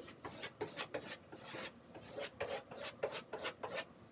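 A large vinyl wall decal being rubbed and smoothed onto the wall, a run of quick rasping strokes, about three a second, to press it flat without air bubbles.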